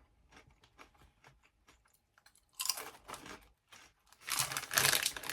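Chewing crunchy Dipsy Doodles corn chips: a run of faint, quick crunches, then louder crunching and rustling about halfway through and again near the end.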